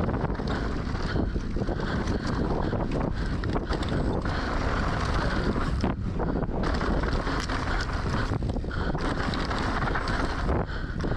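Wind buffeting the microphone while a mountain bike descends fast over rough trail, with tyre noise and many small knocks and rattles from the bike.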